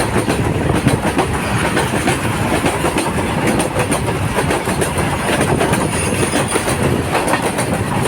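A train passing close by at speed, its wheels clattering over the rail joints in a loud, steady rumble.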